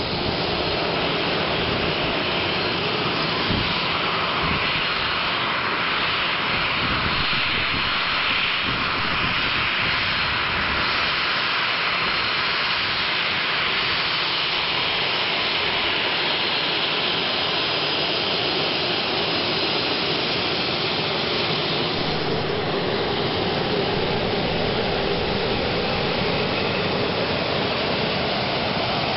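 Boeing 737 freighter's jet engines running at taxi power as it moves on the apron: a steady rushing whine, its tone shifting a little lower about three quarters of the way through.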